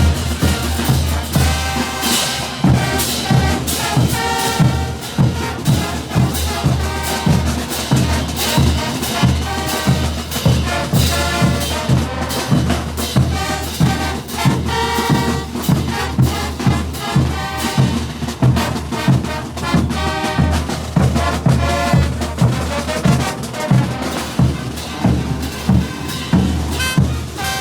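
Brass band playing a morenada: trumpets and other brass over a steady beat of bass drum and percussion.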